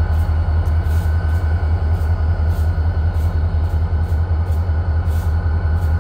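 EMD GP40-2 diesel locomotive engine running steadily at close range: a deep, evenly throbbing rumble with a faint steady whine above it.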